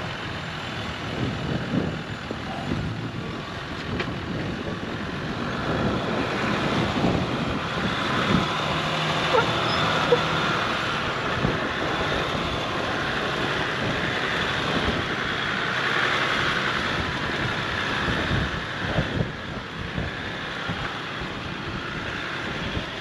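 Four-wheel-drive engine running under load as it crawls up a rock hill, with gusts of wind buffeting the microphone.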